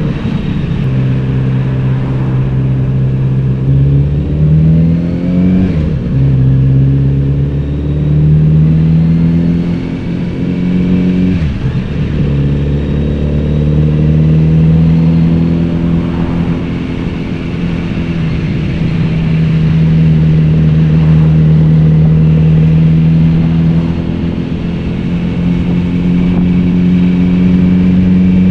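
Kawasaki Z900RS inline-four engine and exhaust heard from the saddle while riding, rising in pitch and dropping back several times as it pulls away and changes gear, then holding a steady note for about ten seconds before climbing again near the end.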